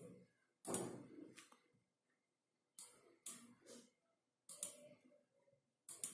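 A handful of faint, scattered clicks of a computer mouse over near silence, about six in all, a second or so apart.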